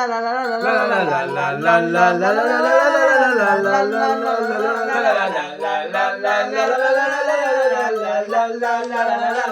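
Male voices singing a slow melody whose pitch slides smoothly up and down.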